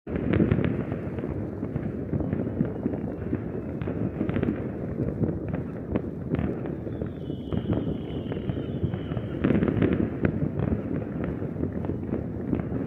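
Fireworks going off all around in a dense, continuous crackle of many overlapping bangs and pops, a little louder near the start and again about ten seconds in. A high, faintly falling whistle sounds from about six and a half to nine and a half seconds in.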